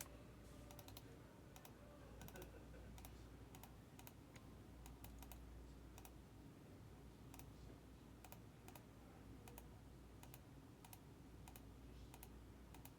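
Faint computer keyboard typing: irregular light key clicks over a low steady hum.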